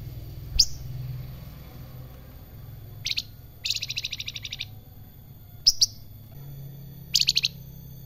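Flamboyan (Sunda bush warbler) singing: sharp, loud upswept whistled notes alternating with short bursts of fast chattering trills of about ten notes a second.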